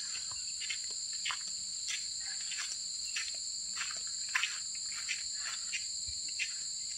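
Steady, high-pitched chorus of insects such as crickets, with scattered faint short ticks through it.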